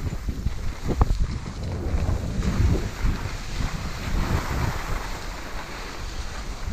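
Wind buffeting the microphone: an uneven low rumble with a hiss above it, and a single sharp knock about a second in.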